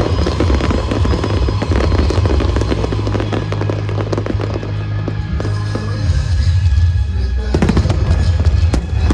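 Aerial fireworks display: rapid crackling bursts and booms over loud, bass-heavy show music, with a sharper loud burst about seven and a half seconds in and another near the end.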